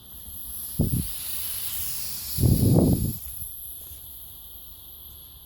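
Gas hissing from a propane torch's hose, swelling and then fading away, with two short low whooshes about one and two and a half seconds in.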